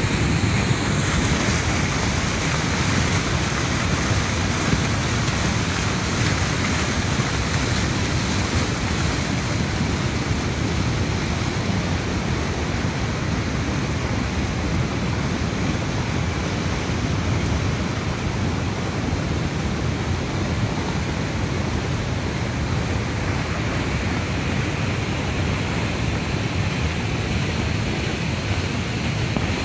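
Muddy flash-flood torrent rushing steadily, a continuous loud rush of fast water.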